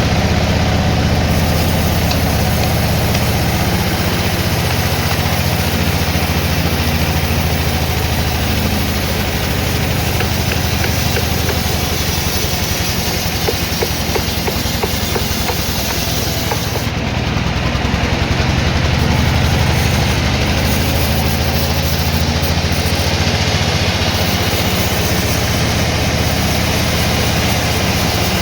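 Sawmill machinery running steadily, with a continuous low engine drone.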